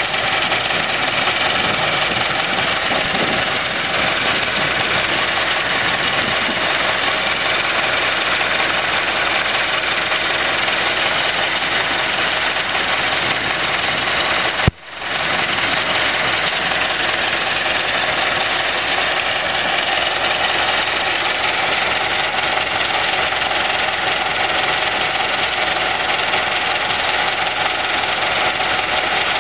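An engine running steadily under a dense hiss, cut off sharply for a moment about halfway through and fading back in.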